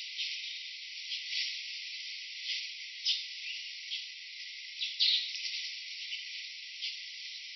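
Steady insect chorus, a high hiss, with short sharp chirps every second or so and a few brief sliding calls.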